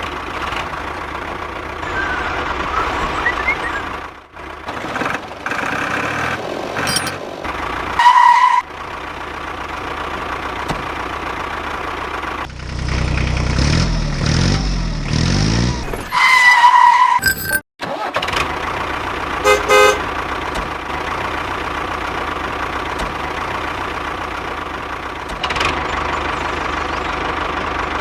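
Tractor engine sound running steadily, broken by abrupt cuts, with two short horn toots about 8 and 16 seconds in. Between them the engine sound grows louder, with its pitch going up and down.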